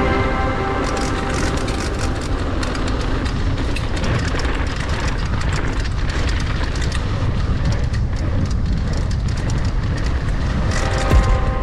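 Steady rushing noise with dense rattling and clattering, the kind an action camera's microphone picks up from wind and vibration on a fast run; one louder knock near the end.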